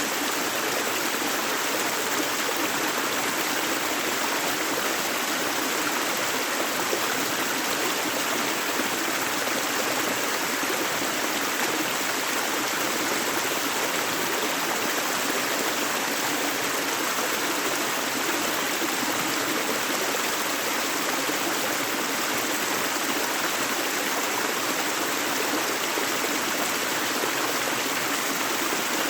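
A river's running water: a steady, even rush of flowing water with no breaks or changes.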